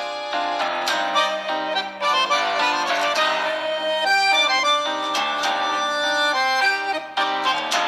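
A Samsung Galaxy J7 2017 ringtone playing: an instrumental melody moving from note to note, with a few short percussive hits.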